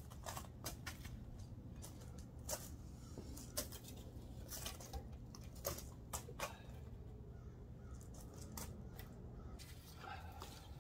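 Faint, irregular knocks and scrapes of white plastic five-gallon buckets being carried and set down on gravel, with a lid being lifted off one near the end.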